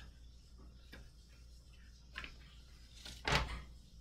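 Paper sheets being handled on a desk: a few faint ticks and rustles, with one louder thump about three seconds in.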